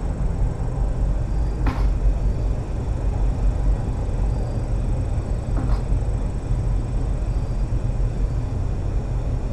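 Steady low rumble of background noise, with two faint knocks about two and six seconds in.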